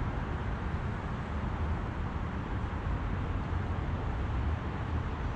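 Steady outdoor background rumble, heaviest in the low bass, with no distinct events.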